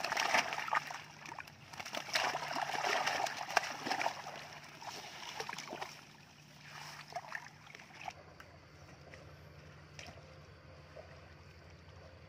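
Freshly netted tilapia thrashing and splashing in shallow water, a busy run of wet slaps and splashes that dies down after about six seconds, with a faint low hum underneath.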